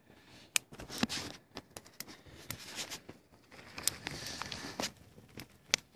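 Irregular clicks, knocks and short scrapes from handling cooking gear: a metal camping pan shifted on a small stove and a wooden spatula working a thick egg-and-bacon pancake batter, with rustling in between.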